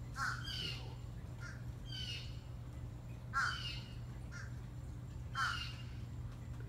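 A crow cawing repeatedly, several short calls a second or two apart, the loudest about three and a half and five and a half seconds in, over a steady low hum.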